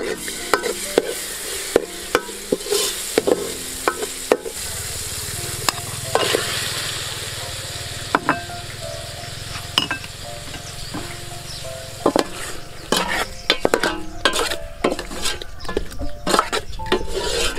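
Chopped chillies and garlic, with chunks of fish, sizzling in hot oil in a metal pot, stirred with a metal ladle that clinks and scrapes against the pot many times. The sizzling is fuller and lower from about four seconds in.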